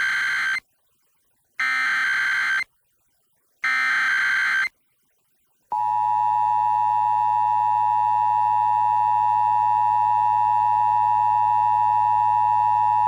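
Emergency Alert System SAME header: three one-second bursts of warbling data tones, then the steady two-tone EAS attention signal, which starts about six seconds in and keeps going. Together they open an EAS Required Monthly Test, relayed over FM radio.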